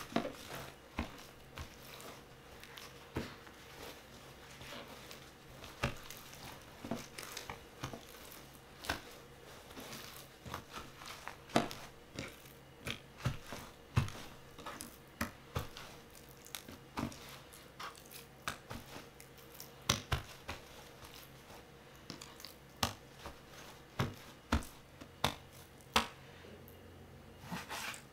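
Paper towels pressed and dabbed onto raw chicken thighs in a tray: irregular sharp taps and soft paper crinkling, with a faint steady hum underneath.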